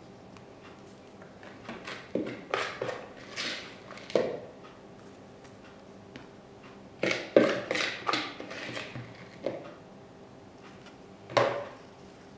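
Hands working potting soil around ficus cuttings in a flowerpot: bursts of rustling and scraping with light knocks from the pot, in two groups and a single one near the end.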